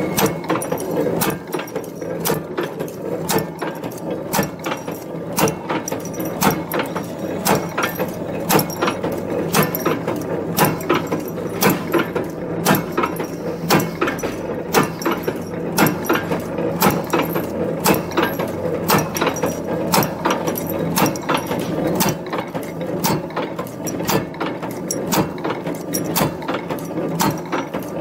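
Steel strip packing buckle making machine running: a steady mechanical clatter with sharp metallic clicks repeating a little over once a second as it cuts and forms steel strip into buckles.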